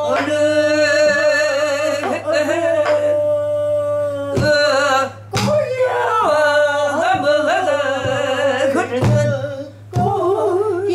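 A woman singing pansori full-voiced, holding long notes with a wide, wavering vibrato and breaking off between phrases. A few sharp knocks fall in the pauses.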